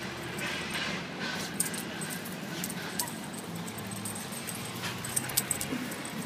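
A pit bull–type dog whimpering and whining in short calls, worked up and bucking about on the lawn. Its metal collar jingles in a few sharp clicks, most of them about five seconds in.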